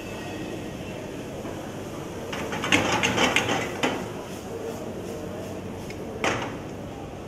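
A wooden spatula stirs a green pea filling in a non-stick frying pan while the pan is tossed. A run of clattering knocks of pan and spatula comes about two to four seconds in, and one sharp knock comes near the end, over a steady rushing background.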